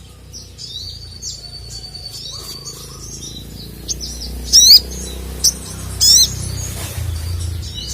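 Sogon (little spiderhunter) calling: a run of quick high chirps and trills, with two loud sweeping calls about four and a half and six seconds in.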